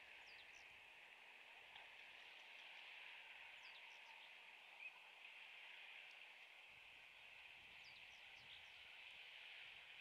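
Near silence: faint outdoor ambience of a steady high hiss, with a few brief, faint high chirps in small clusters about half a second in, near the middle and near the end.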